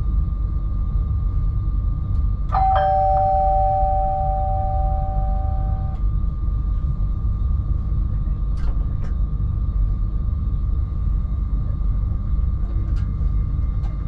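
Alstom X40 electric multiple unit running, a steady low rumble with a thin high hum. About two and a half seconds in, a two-note electronic chime sounds and holds for about three seconds before cutting off; a few faint clicks follow.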